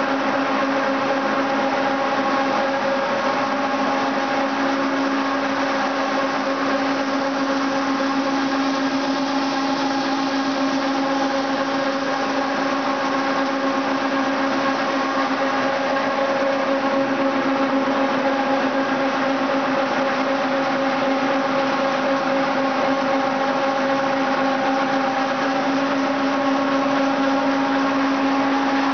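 Insta-Pro Press-ExPress oilseed processing machinery running while processing sunflowerseed: a loud, even mechanical drone with a strong steady hum and several higher held tones.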